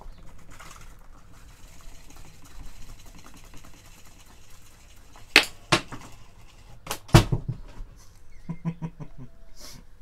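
Electric pedestal fan running with a low motor hum, then loud hard clacks, two about five and a half seconds in and two about seven seconds in, as the spinning fan blade strikes and breaks, followed by lighter rattling clicks.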